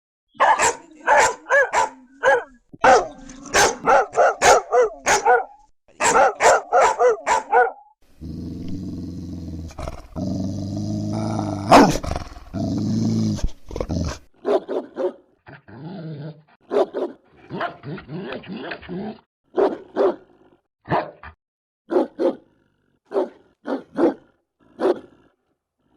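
Angry dogs barking fiercely in quick bursts, then a long low growl lasting about six seconds, then a run of single barks about a second apart.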